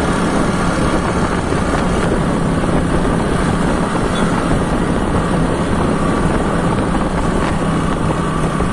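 Motorbike engine running steadily while riding along a road, mixed with the rush of wind and road noise.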